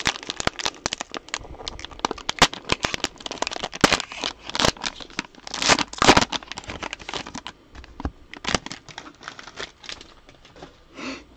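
Cellophane wrapper of a trading-card cello pack crinkling and tearing as it is handled and ripped open, a dense run of sharp crackles that thins out near the end.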